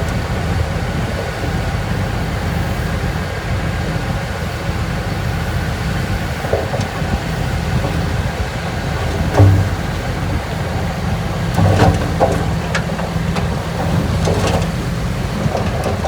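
Heavy earthmoving machinery's diesel engine running with a steady low drone. A few sharp knocks break through: the loudest about nine seconds in, then more around twelve and fourteen seconds.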